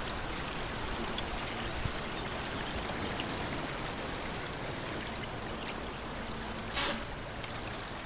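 Shallow seawater washing and trickling steadily around rocks. A short hiss comes about seven seconds in.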